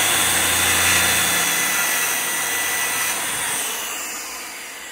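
Circular saw running and cutting through a wooden board, a loud whining buzz that started just before; the low motor hum drops out about three and a half seconds in and the sound fades gradually toward the end as the cut finishes.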